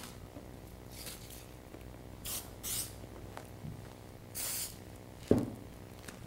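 Handling noise as a clear vinyl pattern sheet is laid out and slid on chipboard: three short swishes, then a single sharp knock about five seconds in.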